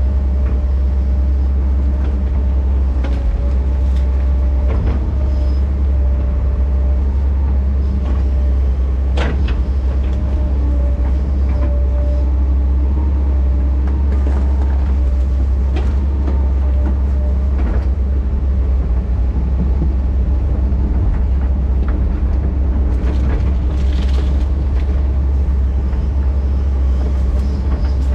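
Excavator's diesel engine running steadily with a heavy low rumble, with scattered sharp knocks and clanks from the working machine.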